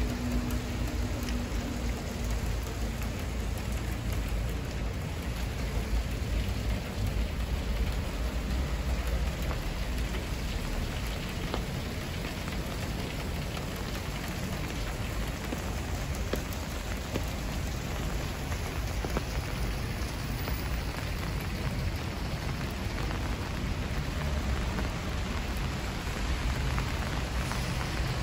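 Steady rain falling on wet pavement and street, an even hiss that holds throughout, with a low rumble underneath.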